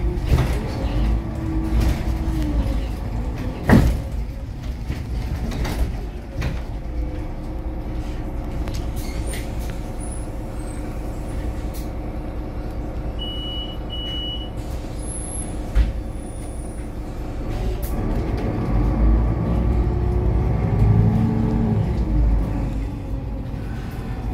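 City bus engine slowing as the bus pulls up, idling at a stop, then picking up again as it pulls away near the end. A sharp burst about four seconds in and two short high beeps near the middle.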